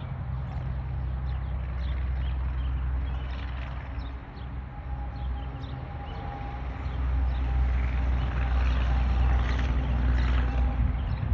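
A steady low mechanical hum with short, high bird chirps over it; about seven seconds in, a louder rushing hiss rises and holds.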